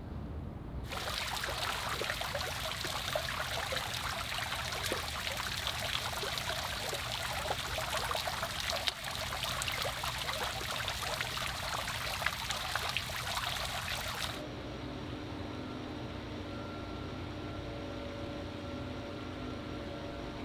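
Tiered stone fountain: water raining from its upper bowl into the pool, a dense, even splashing patter of drops. It starts about a second in and stops abruptly about fourteen seconds in, giving way to a steady low hum with a few held tones.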